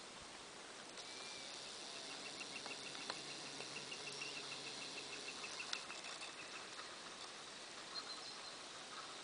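Steady high-pitched insect buzzing outdoors, with a quick run of evenly spaced high chirps for about three seconds in the middle.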